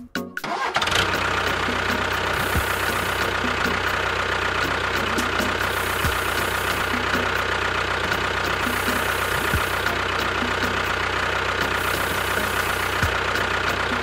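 Engine running sound for a model tractor-bulldozer pushing sand: it starts about a second in and then runs steadily, with a pattern that repeats about every three and a half seconds.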